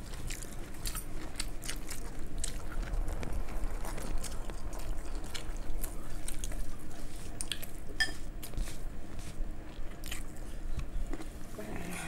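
Close-up chewing by several people eating fried rice by hand, with irregular wet mouth clicks throughout.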